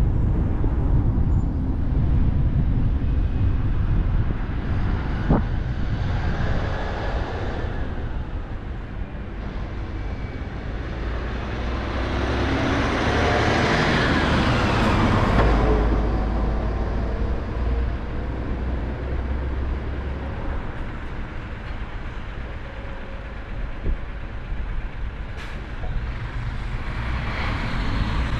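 A car driving along a road, with a steady low rumble of tyres and engine. About halfway through, the noise swells louder and then fades as another vehicle passes.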